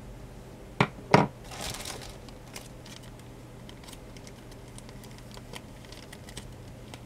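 Two quick knocks as a plastic cosmetic tube is set down on a wooden desk, then plastic packaging crinkling, with scattered small crackles as a cellophane packet is handled.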